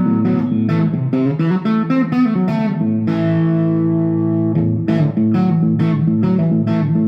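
Stratocaster electric guitar played through light distortion on its bridge single-coil pickup alone: a run of quickly picked notes, a chord held for about a second and a half near the middle, then the picking starts again.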